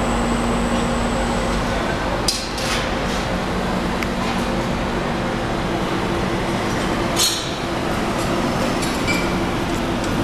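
Amada HFE 1303 hydraulic CNC press brake powered up and running: a steady machine hum whose tones shift a few seconds in. Two sharp metallic clinks about five seconds apart.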